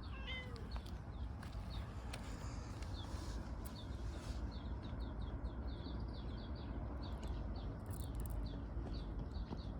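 Small birds chirping: a run of short, high chirps repeating many times, thickest in the middle, over a steady low rumble.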